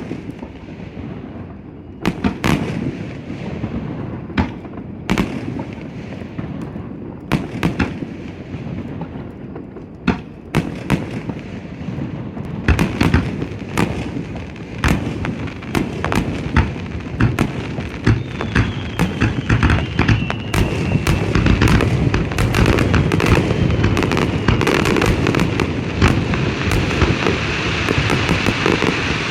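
Fireworks display: aerial shells bursting with sharp bangs over a crackling wash, the bursts coming faster and denser and the whole louder through the second half.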